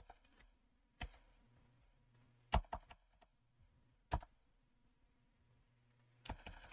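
A few separate computer keyboard keystrokes, spaced a second or more apart with near silence between them, and a quick run of key presses near the end.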